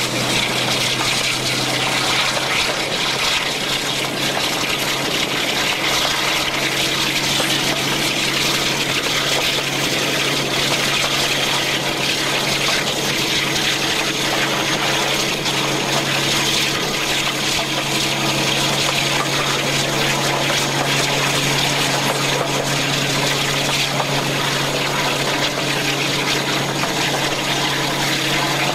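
Twin-Maybach-engined diesel-hydraulic locomotive running under power with a steady engine drone, under heavy rushing air and wheel noise heard from an open window on the moving train.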